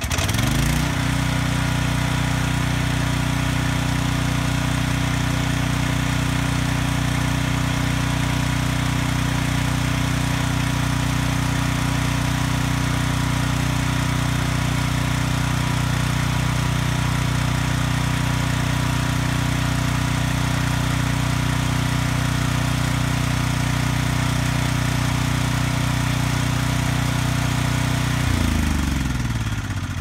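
Briggs & Stratton single-cylinder engine of a portable generator running on propane: it comes up to speed just after being pull-started, runs at a steady speed, then shuts down near the end, its pitch sliding down as it coasts to a stop.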